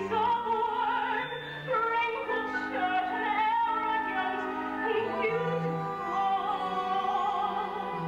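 A musical theatre song performed live: a singer holding notes with a wide vibrato over sustained accompaniment chords.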